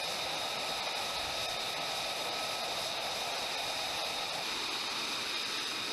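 Steady rushing noise of jet aircraft in flight, with a faint high whine.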